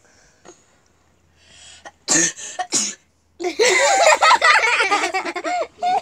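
A child sneezing: a quick in-breath, then three short, sharp sneezes within about a second, followed by loud high-pitched laughter.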